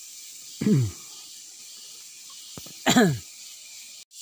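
A man's voice: two short utterances with falling pitch, about two seconds apart, over a steady high hiss.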